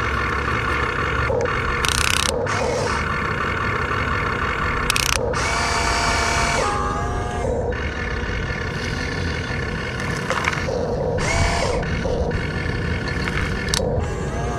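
Small electric motors of radio-controlled model construction machines whining in short spurts that rise and fall in pitch, over a steady low rumble, with several brief hissing or scraping bursts.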